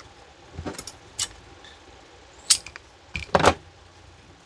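Handling noise from small cable parts: a few short clicks and rattles of wire and plastic being worked, the loudest about three and a half seconds in.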